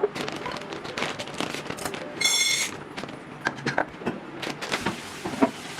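Clattering of kitchen items, such as containers, shelves and fruit, being handled and set down while a fridge is emptied and reorganised: a run of short knocks and clicks. A short high electronic beep sounds about two seconds in.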